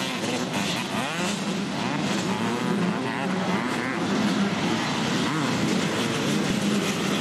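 Motocross bikes' engines revving up and down as they race, the pitch rising and falling over and over.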